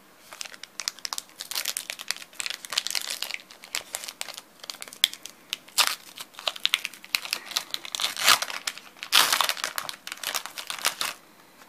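Foil wrapper of a Pokémon trading card booster pack being crinkled and torn open, then rustling as the cards are pulled out. The crackling is uneven, with louder rips about six, eight and nine seconds in.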